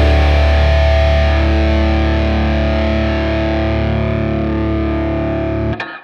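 Background rock music ending on a held, distorted guitar chord that slowly fades, then cuts off abruptly near the end.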